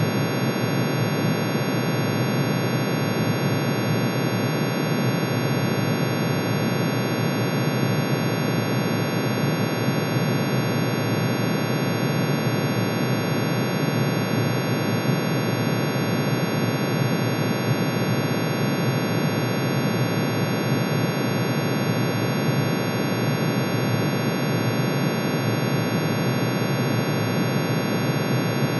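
Synthesized sonification of iron's atomic emission spectrum: hundreds of sine tones, one for each spectral line, pitch-shifted into hearing range and sounding together as a steady, dense, unchanging drone. It is a noisy wash in the low range with many fixed higher tones above it.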